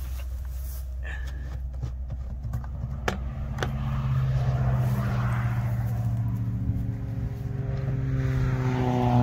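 An engine running steadily, its pitch rising slightly near the end, with a couple of sharp knocks from plastic pails being handled about three seconds in.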